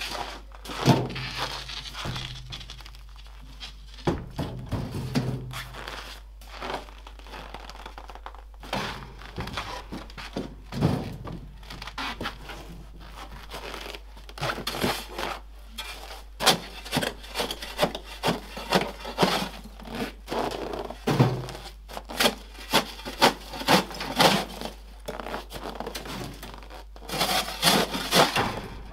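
A steel crowbar chipping at a thick crust of frozen urine ice on the ground. It strikes again and again at an uneven pace, with cracking as the ice breaks, and the blows come thicker near the end.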